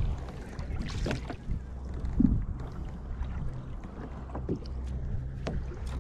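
Kayak on the sea: water splashing and knocking against the hull now and then over a steady low rumble.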